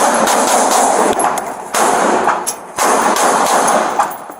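Close-range gunfire in three long, rapid bursts, the shots running together. It is an exchange of fire between police and the armed suspect.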